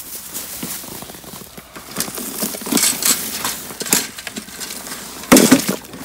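Scattered rustles, scuffs and small knocks from handling gear and moving about on straw and snow, with one louder scraping burst about five seconds in.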